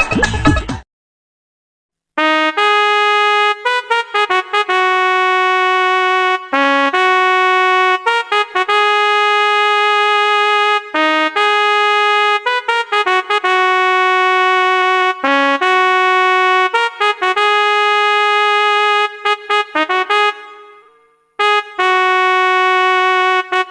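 Trumpet-like brass melody of short repeated notes and long held ones, a comic background-music cue; it starts about two seconds in after a short silence, breaks off near the end and starts again. A different, denser music clip cuts off at the very start.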